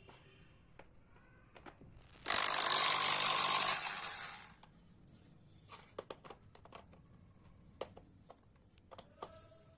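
Corded Bosch power drill with a screwdriver bit running freely for about two seconds, then winding down. This is followed by scattered light clicks and taps as the bit is set onto a screw in a plastic switch board.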